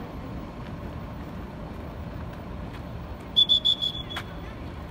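Steady outdoor background noise, then about three and a half seconds in a referee's whistle: a quick run of short high blasts ending in a brief held note.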